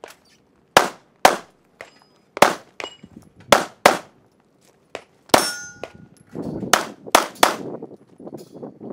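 Handgun shots fired through a practical-shooting course of fire: about nine sharp reports, singly and in quick pairs and triples, over some seven seconds. One shot about five seconds in is followed by a brief ringing tone.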